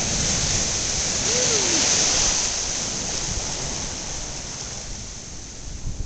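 Storm surf breaking over a seawall: a long rush of crashing water and spray that swells about two seconds in and then dies away, with wind buffeting the microphone.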